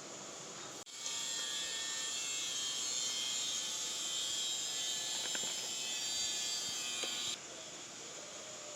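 Food frying in hot oil: a steady, bright sizzle with faint crackles that starts abruptly about a second in and cuts off near the end.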